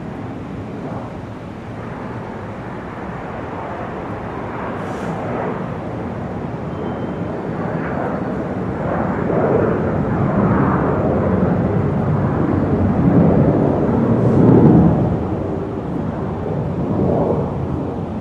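Airport ambience dominated by a steady noise of aircraft engines, swelling louder in the second half and easing off near the end.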